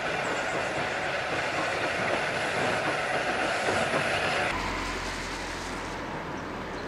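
A steam train passing close by, a loud steady rush of steam and running wheels. It cuts off abruptly about four and a half seconds in, leaving quieter outdoor background with a low steady hum.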